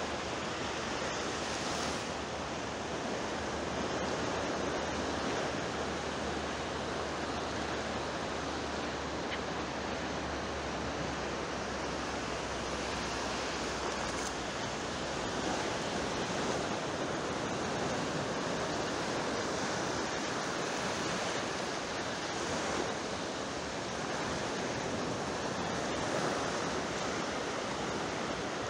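Steady wash of sea waves with gentle swells, under a low hum that stops about halfway through.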